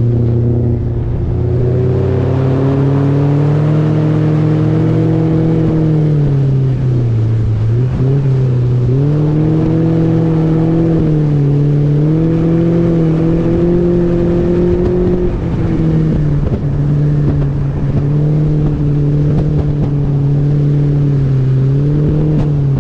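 Mercury 115 Pro XS outboard motor pushing a small speedboat, its pitch climbing as the throttle opens a second or two in, then dipping and climbing again a few times as the throttle is eased and reopened, over a rush of wind and water.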